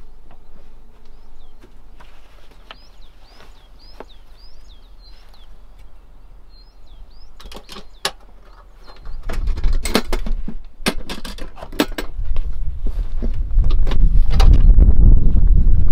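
A small bird chirping in a quick repeated phrase, then a series of sharp metal clicks and clatters as the latches of a metal lunch box are flipped open and its lid lifted. A low rumble builds under it and is loudest near the end.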